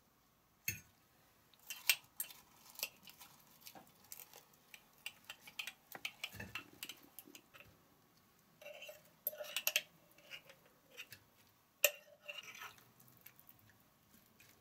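Metal fork clicking and scraping against a glass jar and a plate in irregular light taps, while salad leaves and food rustle and slide out of the jar onto the plate.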